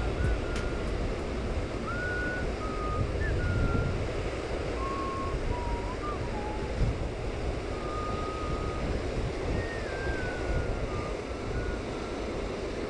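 Wind rumbling on the microphone over a steady outdoor background noise, with a faint thin wavering tone coming and going.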